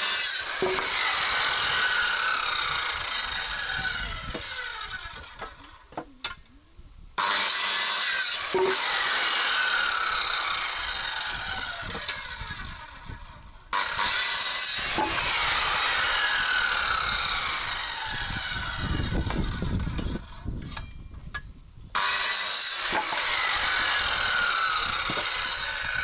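Power saw cutting boards from timber in four long passes, each starting suddenly at full loudness and fading off over several seconds before the next cut begins.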